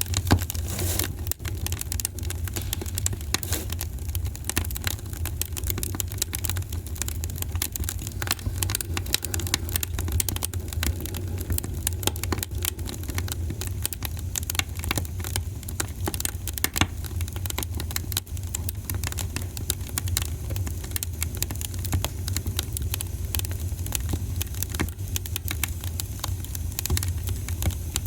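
Fire burning in a fireplace, crackling with dense, irregular small pops and snaps over a steady low rumble.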